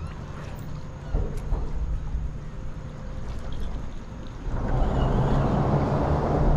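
Water lapping against a fishing kayak's hull, with wind on the microphone. A single knock about a second in, and a louder rushing sound with a low hum over the last two seconds as the kayak moves along the piling.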